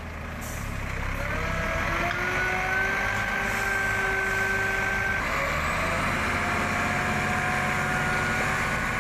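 Heavy truck diesel engines running under load as a concrete mixer truck tows a mired dump truck out of the mud. A whine rises in pitch and then holds steady twice, once for about four seconds and again from about the middle on.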